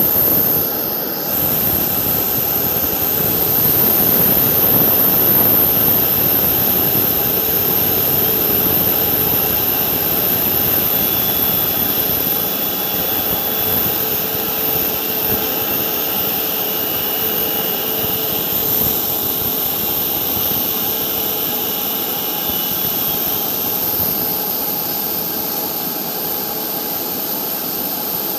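Turbofan engines of an IndiGo Airbus A320-family jet running at taxi power as it rolls past: a steady rushing jet noise with a low hum beneath it and a faint high whine, easing a little near the end as the aircraft turns away.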